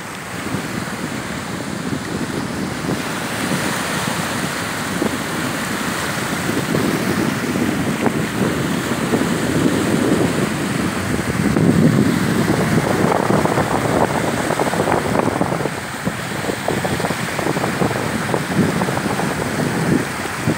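Sea waves rushing and breaking, with wind buffeting the phone's microphone.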